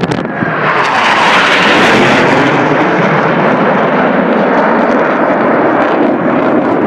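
Jet aircraft flying past, its loud engine noise swelling over the first second and then holding steady.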